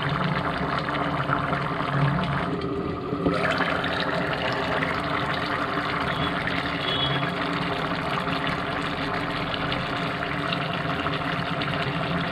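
Snail curry bubbling and crackling in a pot as it simmers, with a steady hum beneath it.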